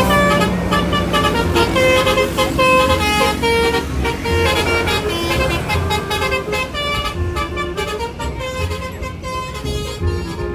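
A bus's multi-tone 'telolet' horn playing a quick melody of short tooting notes, over a low, regularly pulsing rumble.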